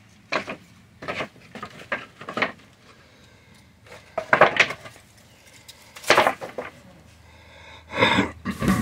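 Weathered pallet-wood boards knocking and clattering as they are handled and set down on concrete: a series of separate knocks with short quiet gaps between, and a longer scraping clatter near the end.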